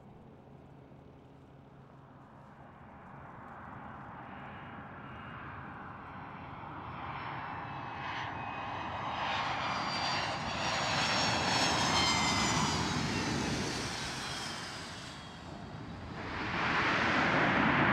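Airplane approaching and passing close by: its engine noise grows steadily louder, with high whining tones that fall in pitch as it goes past. Near the end a louder rushing noise starts up suddenly.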